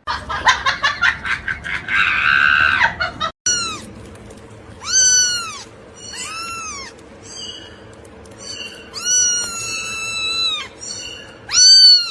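A cat meowing over and over: about six drawn-out meows that rise and fall in pitch, one held longer than the rest, the loudest at the very end. Before them, for the first three seconds, a run of quick clicks and a rustling noise.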